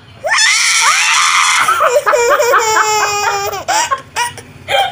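A toddler girl shrieking and laughing, with a woman's voice squealing along, starting suddenly about a quarter second in. The high-pitched squeals give way to a run of quick giggles in the middle, then to shorter bursts of laughter near the end.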